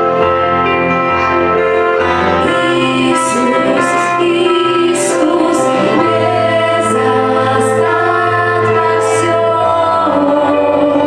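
Worship song: singing over sustained keyboard chords and a steady bass line.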